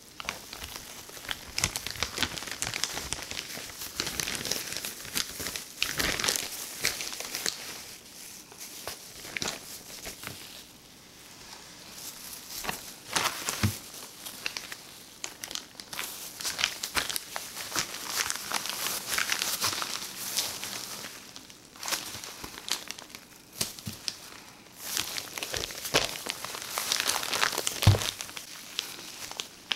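Clear plastic zip-top bag and disposable plastic gloves crinkling and crackling as a raw steak is slid into the bag and the bag is pressed flat, in irregular bursts of sharp crinkles with a few short lulls.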